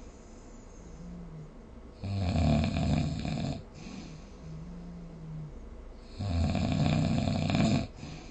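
A sleeping person snoring: two loud snores, each about a second and a half long and about four seconds apart, with a softer, low humming breath between them.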